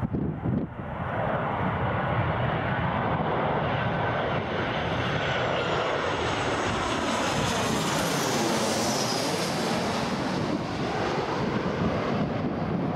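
A Boeing 737-800 airliner's twin CFM56 jet engines passing low overhead on final approach. The sound builds to a steady roar about a second in, and a high whine falls in pitch as the jet goes over, around eight or nine seconds in. Gusts of wind buffet the microphone in the first second.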